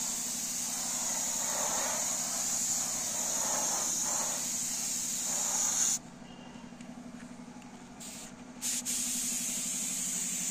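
Air spray gun hissing steadily as solid white paint goes onto a car door in its first coat. The hiss cuts off suddenly about six seconds in and returns in short spurts near the end, over a steady low hum.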